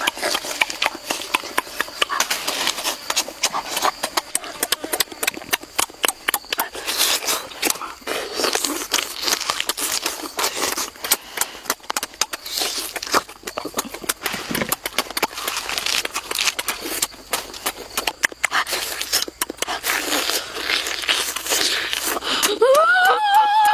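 Close-miked chewing and crunching of food: a dense, irregular run of crackly snaps.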